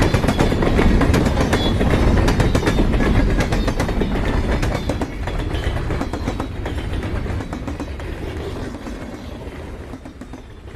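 Train rumbling along with rapid clattering of wheels over the rails, fading away over the last several seconds and then cutting off abruptly.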